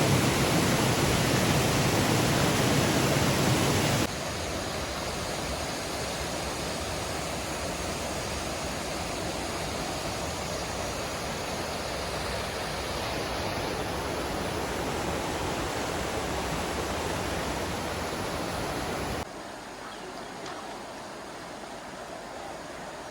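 River water rushing steadily, an even continuous noise. It cuts abruptly to a quieter stretch about four seconds in, and again about four seconds before the end.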